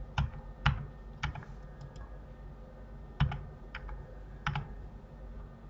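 Computer keyboard keys and mouse buttons clicking while operating the software, about ten separate sharp clicks, a few of them in quick pairs.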